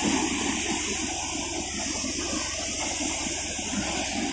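Paddy thresher running steadily: a continuous rushing whir from the threshing drum over a faint low hum.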